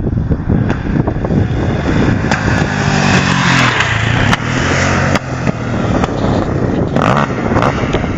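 KTM 625 SMC's single-cylinder four-stroke engine running under throttle, its note loudest in the middle and dropping sharply about five seconds in before picking up again, with wind noise on the microphone.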